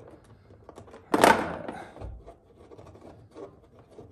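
Hand screwdriver backing a Phillips screw out of a metal drawer rail inside a wooden drawer: small clicks and creaks of handling, with one louder brief scrape a little over a second in and a soft low thump just after.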